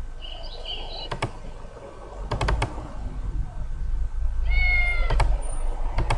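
Animal sound effects played back on a computer: a short high-pitched call near the start, then a cat meowing once for under a second about four and a half seconds in, with sharp computer clicks between the clips.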